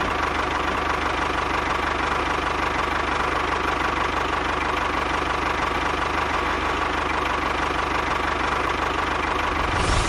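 Miniature model tractor running steadily, with a fast, even knocking rhythm and a faint steady whine.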